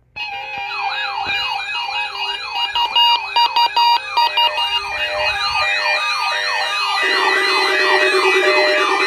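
Several weather radio receivers sounding their alert alarms at once for a weekly test: overlapping fast, repeating siren-like wails and steady tones that start suddenly. About seven seconds in, a lower buzzing alarm tone joins.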